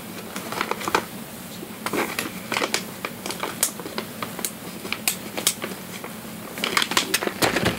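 Hands handling a homemade hamster toy and the treats going into it: scattered crisp clicks and rustles, busier near the end.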